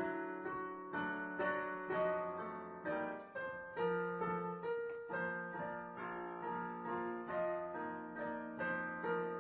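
Digital piano played with both hands: a melody over chords, notes struck about twice a second and left to ring.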